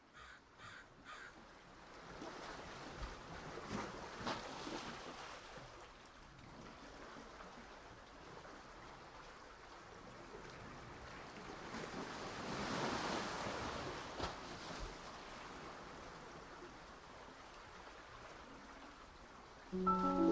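A steady rushing wash like surf, swelling and easing twice, with a few short sounds in the first second. Piano music comes in near the end.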